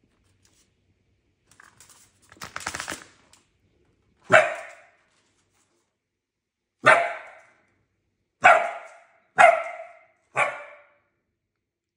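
A young puppy barking five times in short, sharp barks spaced one to two seconds apart. A brief rattling noise comes about two seconds in, before the first bark.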